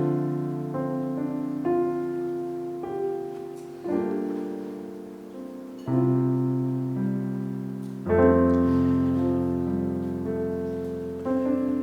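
Slow, soft piano playing: sustained chords are struck about every two seconds and left to ring and fade between them.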